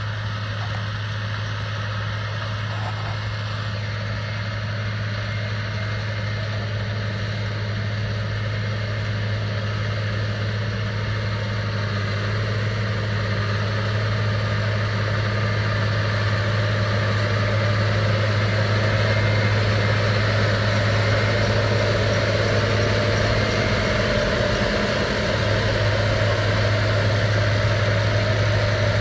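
Tractor running steadily while powering a Krone Comprima V180 round baler: a constant low engine hum with machinery noise above it, growing slowly louder.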